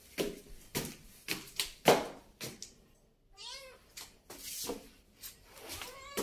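A kitten meows once, a short call that rises and falls about halfway through, with a fainter meow near the end. A run of sharp taps, about two a second, runs alongside and is the loudest sound.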